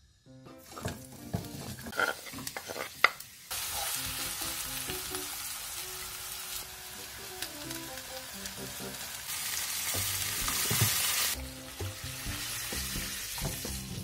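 Chopped green onions frying in oil in a wok: a few knocks, then a loud steady sizzle from about three and a half seconds in. Around nine seconds in, a louder burst of sizzling comes as soy sauce is poured into the hot pan, and it drops away about two seconds later. Background music plays underneath.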